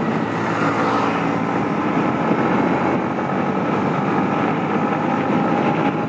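Yamaha MT-15's 155 cc single-cylinder engine running steadily at road speed, heard from the rider's position with wind rushing over the microphone.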